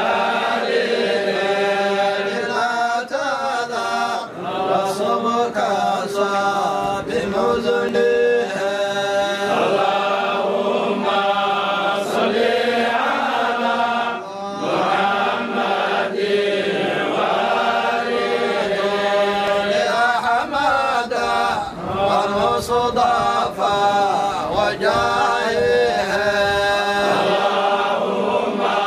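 Group of men's voices chanting together in a continuous devotional chant, sung in unison without pause.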